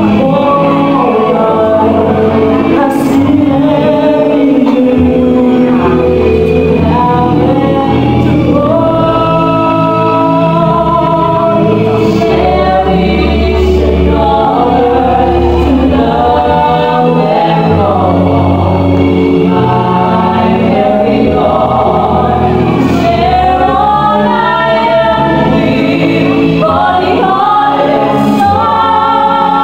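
A woman singing a slow love song into a microphone with long held notes, over an instrumental backing.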